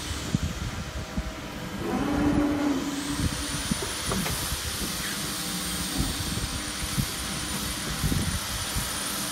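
Steady hum and low rumble of an electro-hydraulic CNC press brake running at rest, with a faint high whine throughout and a brief stronger hum about two seconds in.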